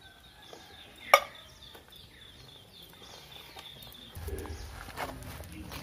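A single sharp clink about a second in, like a steel utensil knocking against a steel bowl, over thin bird calls in the background; a low rumble starts about four seconds in.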